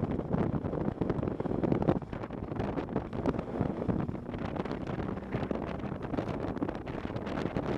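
Wind buffeting the microphone of a moving motorcycle, a rough, gusty rush, with the bike's engine running steadily underneath.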